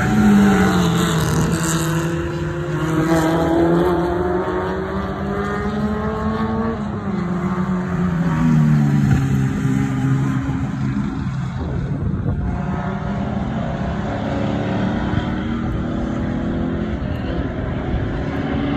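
Race car engines passing on a road-course track, the engine pitch rising and falling repeatedly as the cars accelerate and slow.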